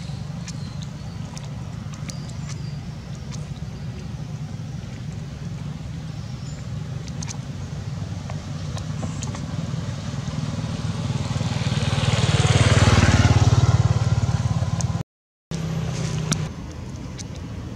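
Road traffic: a steady low engine hum, with a vehicle passing close that rises to a loud peak about two-thirds of the way through and then fades. The sound cuts out completely for a moment just after.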